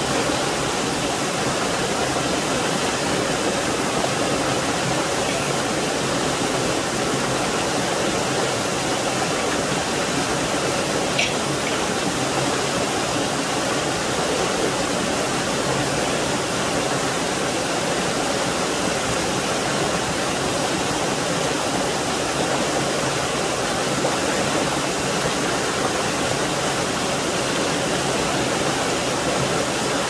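Small waterfall in a rocky mountain stream, water pouring over boulders into a shallow pool with a steady rush.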